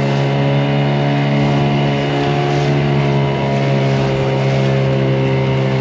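Small outboard motor on a 3.5 m aluminium dinghy running at a steady pitch. The boat is heavily loaded and not yet up on the plane. A hiss of wind and water runs under the engine.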